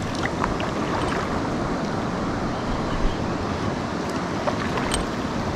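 River water rushing steadily past rocks, with a couple of faint ticks.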